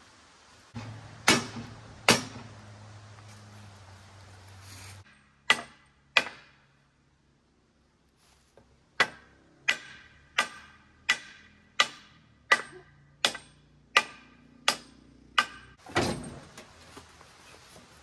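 Hammer blows ringing on the steel frame of a sawmill head during assembly: a few loud single knocks, then a steady run of about ten strikes, roughly three every two seconds. A low hum runs through the first few seconds.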